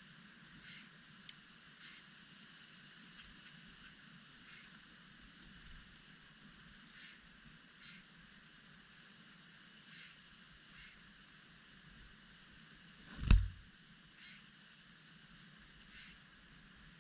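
Small songbirds giving short, sharp chip calls every second or two over a steady outdoor hiss. One loud thump about thirteen seconds in.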